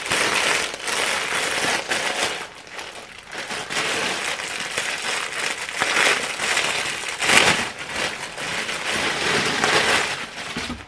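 Clear plastic garment bag crinkling and rustling in irregular bursts as it is opened by hand and a dress is pulled out, loudest about seven seconds in.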